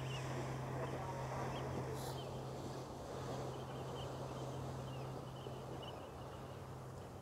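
Car ferry's engines running with a low, steady drone as it comes into harbour, over an even rush of wind and water. Faint bird chirps come through, and there is a single click about two seconds in.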